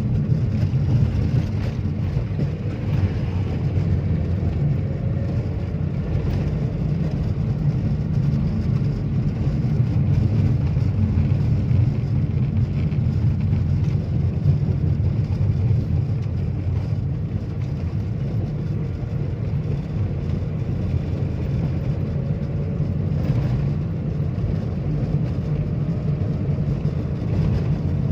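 Steady low rumble of a vehicle driving, engine and road noise, with a faint rise and fall in engine pitch now and then.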